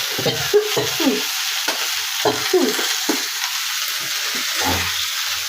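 Spicy curry sizzling as it fries in a pan, with a steady hiss throughout. Short scraping strokes with brief squeaky glides come again and again as it is stirred.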